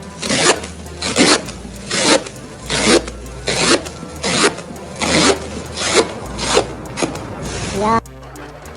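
Rasping, scraping strokes of a hand tool across a surface, repeated evenly a little more than once a second, cutting off abruptly near the end.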